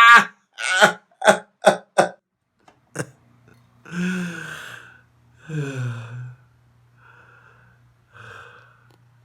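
A person's breathy vocal sounds: a quick run of short gasps in the first two seconds, then two longer voiced breaths that fall in pitch, then fainter breaths near the end. A low steady hum sits underneath from about three seconds in.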